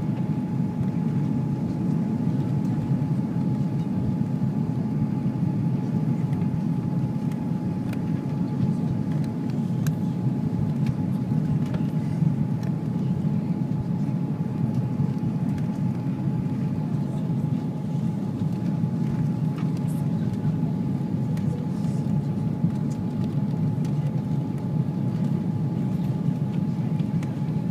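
Cabin noise in an Airbus A340 on final approach with flaps extended, heard from a window seat over the wing: a steady low roar of airflow and the jet engines, with a steady high hum running through it.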